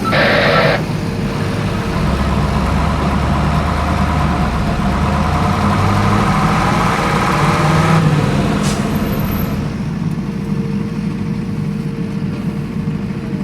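Off-road vehicle engine running, building for several seconds and then easing off. A brief, sharp noise sounds right at the start.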